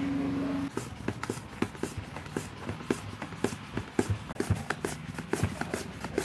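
A red-skinned potato sliced on a hand-held mandoline: a string of sharp, irregular clicking strokes, a few a second, as the potato is pushed across the blade. A steady hum cuts off just before the slicing starts.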